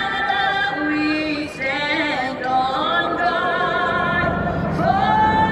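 A solo voice singing high, long-held notes with a wide vibrato in an operatic style. A low rumble builds in under it from about four seconds in.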